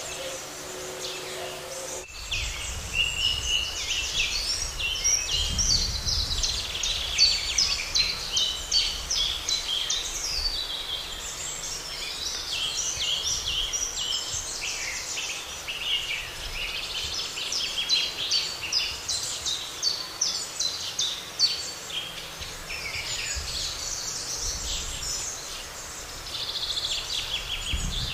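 Dense chorus of many songbirds singing at once, with quick chirps and trills overlapping, and a low rumble underneath. The birdsong starts abruptly about two seconds in, after a brief faint low hum.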